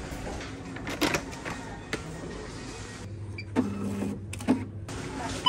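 Supermarket background: a steady low hum with scattered clicks and knocks of handling, and a short mechanical whirr about three and a half seconds in.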